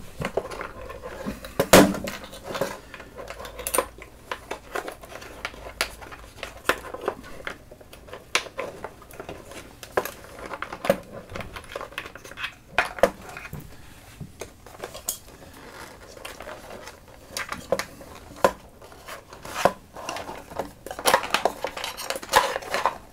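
Irregular clicks, knocks and light metallic clinks of short guitar patch cables with metal jack plugs being handled and pushed through a pedalboard, with one sharper knock about two seconds in.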